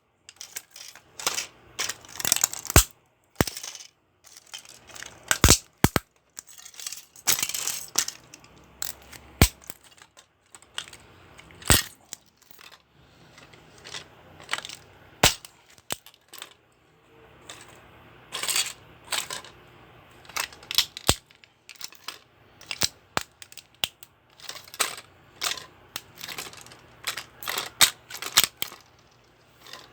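Plastic remote-control toy car being smashed: many sharp, irregular cracks and clattering impacts of hard plastic, with a few longer crunching stretches.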